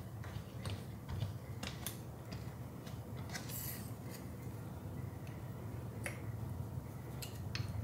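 Fingers scratching a cat's head fur: soft crackling and scattered sharp clicks over a steady low hum.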